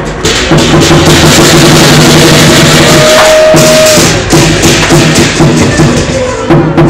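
Lion dance percussion: a drum, gongs and cymbals playing loudly. They hold a steady crashing roll, which breaks about halfway through into a pulsing beat.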